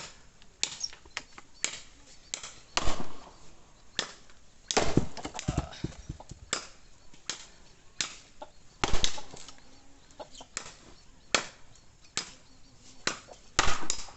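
Firewood being split and handled: irregular wooden knocks and cracks, with several heavier blows among lighter clicks.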